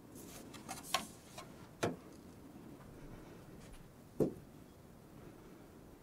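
Faint brushing of a paintbrush on canvas, with three light taps about one, two and four seconds in.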